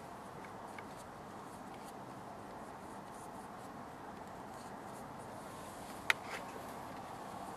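Faint scratchy rubbing of a watercolour paintbrush, with a few small clicks and one sharp click about six seconds in.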